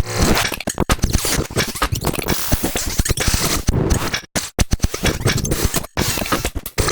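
Glitchy electronic sound-design one-shots, built from a noise sample run through FL Studio's Granulizer and effects, chopped and sequenced into a rhythmic glitch pattern: dense scraping, crackling stutters with abrupt brief cuts to silence about four and six seconds in.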